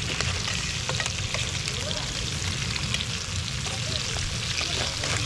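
Chicken legs sizzling in hot oil in a pan over a wood fire, with metal tongs clicking against the pan now and then as the pieces are turned.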